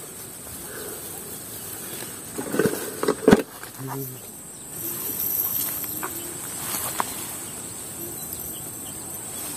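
Steady high-pitched insect chorus, with a couple of sharp clicks and brief low voices about three seconds in.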